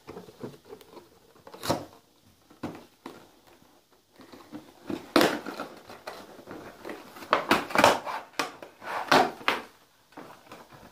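Clear plastic blister packaging of a boxed doll being pried and pulled off its cardboard backing by hand: irregular crackling and crinkling with several sharper snaps of the plastic.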